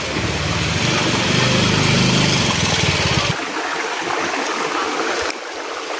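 A small engine running steadily over the steady rush of flowing water; the engine sound cuts off suddenly about three seconds in, leaving the water.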